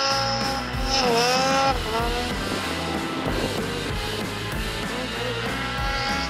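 Snowmobile engine revving high, with the pitch dipping briefly about a second in and climbing back, then rising again near the end. Rock music plays underneath.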